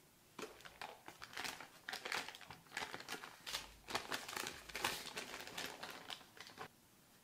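Baking paper crinkling as it is unfolded and peeled back off a flat block of butter, in an irregular run of crackles that starts about half a second in and stops near the end.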